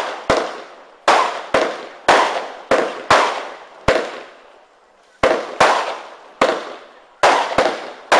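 A 120-shot roman candle firework cake firing shot after shot: about fifteen sharp bangs at uneven intervals, each trailing off as it fades, with a pause of about a second near the middle.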